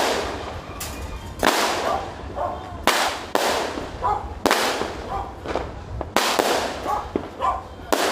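Fireworks going off: a run of sharp bangs about a second apart, each followed by a long echoing tail.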